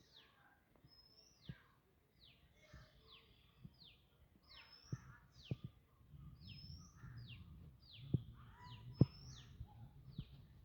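Birds chirping: short, high notes that slide downward, repeated over and over. A few sharp knocks and a low rumble join in from about halfway.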